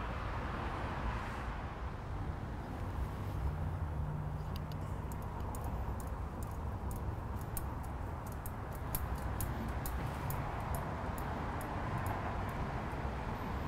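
Steady outdoor background rumble with no clear single source, and faint high ticks scattered through it from about four seconds in.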